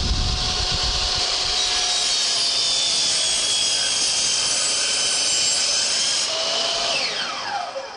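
DeWalt miter saw running at full speed, its blade finishing a cut through a wooden board in the first half second, then spinning on with a steady high whine. Near the end the trigger is released and the motor winds down, its pitch falling.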